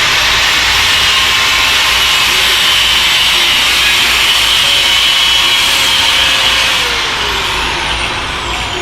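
Angle grinder with a cut-off wheel cutting through car metal: a loud, steady high whine with harsh grinding noise. About seven seconds in its pitch falls and it winds down as the trigger is released.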